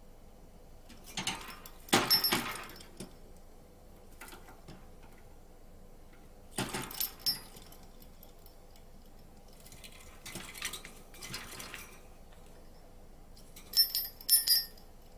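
Budgerigar in its cage: several short bursts of clinking and rattling, the last ones about 14 seconds in with high ringing notes.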